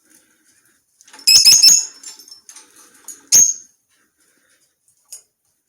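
Pet parakeet calling: a quick run of sharp chirps about a second in, then one more short sharp call a couple of seconds later.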